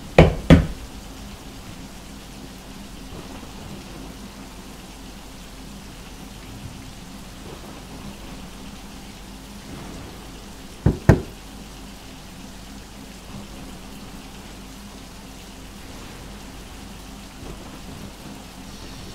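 Two quick knuckle knocks on a hallway wall, then, about eleven seconds later, two knocks answering from the other side of the wall. A steady hiss runs underneath.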